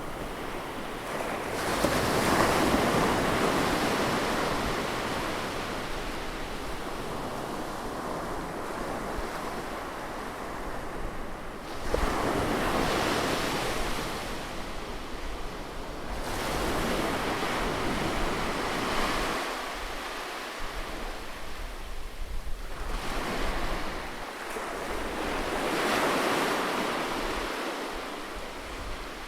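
Ocean surf: waves breaking on a beach one after another, each crash rising quickly and washing out into a long hiss. Four waves break in turn, several seconds apart.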